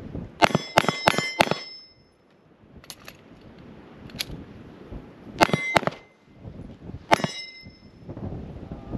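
Handgun shots, most likely from a Smith & Wesson M&P M2.0 pistol: a quick string of about five shots, a couple of light clicks during a magazine change, then two more shots and a single shot a little later. The shots have a brief ringing tail.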